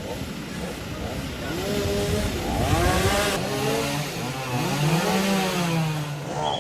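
A small engine revving up and down several times, its pitch rising and falling.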